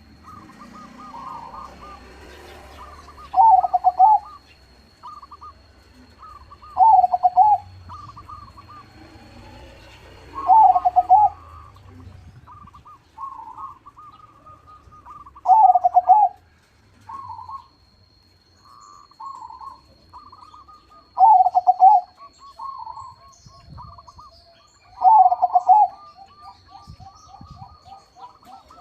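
Crossbred perkutut (zebra dove) singing, a loud rolling coo phrase about every four seconds, six in all, with quicker, softer trilled cooing notes in between.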